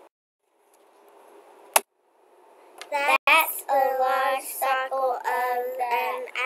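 A child singing a run of held notes, beginning about three seconds in, after a single sharp click just before the two-second mark.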